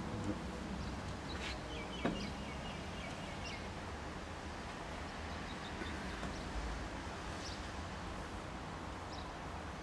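Outdoor ambience: a steady low background rumble with small birds chirping now and then, and one sharp click about two seconds in.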